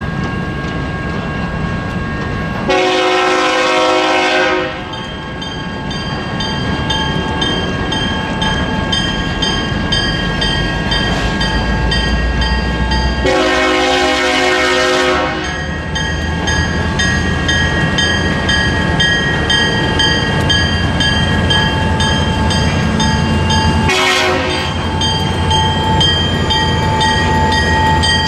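Air horn on the lead EMD SD40-2 locomotive sounding two long blasts and then a short one, the opening of the long-long-short-long grade-crossing signal. A bell rings steadily under the horn, and the diesel rumble of the approaching EMD locomotives grows as they near.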